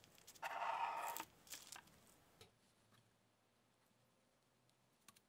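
Serrated bread knife sawing through a genoise sponge cake on parchment paper: one rasping stroke lasting under a second, followed by a few light crackles of the crust and crumbs.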